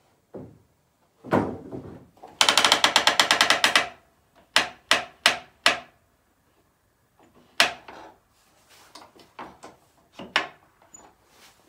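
Knocks and clanks from working a small portable sawmill by hand. A loud knock about a second in is followed by a rapid rattling run of clicks lasting about a second and a half. Then come four quick separate knocks, another knock, and fainter knocks near the end.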